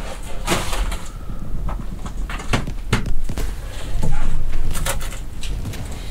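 Boots and gloved hands scuffing, knocking and scraping on rock and old steel step rungs as a person climbs down a narrow rock-cut shaft and back up: about a dozen sharp knocks and scrapes over a steady low rumble.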